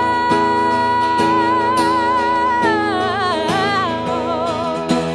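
A woman singing the song's final word as a long, high held note, then a wavering run down before it ends, over a strummed guitar.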